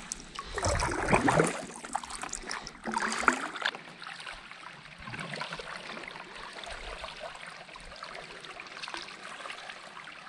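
Kayak paddle strokes in calm canal water: blades dipping and splashing, with water trickling off them. Two louder splashes in the first few seconds, then a quieter steady trickle and lapping.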